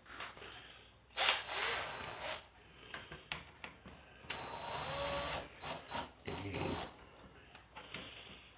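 Handling noises at a workbench: scraping and rustling in irregular bursts, with scattered clicks of tools and plastic parts being moved.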